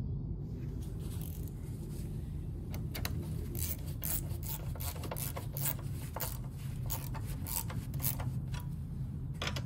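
Ratchet wrench clicking in short irregular bursts as it tightens the nut on a car battery's hold-down clamp, over a steady low hum.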